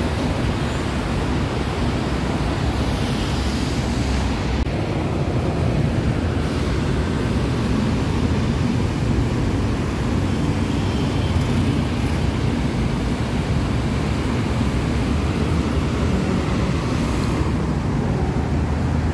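Steady rush of street traffic with motorcycles passing close by.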